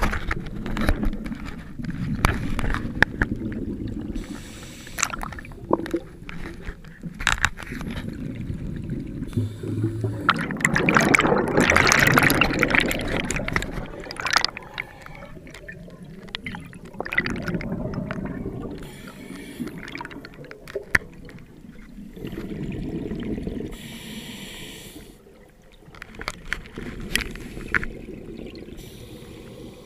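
Scuba breathing heard through an underwater camera housing: bursts of exhaled bubbles rushing and gurgling every few seconds, with sharp clicks and knocks against the housing. The longest and loudest rush of bubbles comes about a third of the way in.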